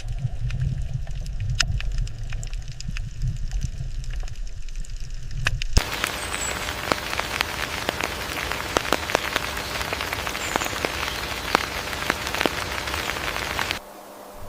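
Outdoor ambient noise in two edited pieces. First a low rumble with scattered ticks. About six seconds in, a dense crackling patter like rain on a surface takes over, and it cuts off abruptly near the end.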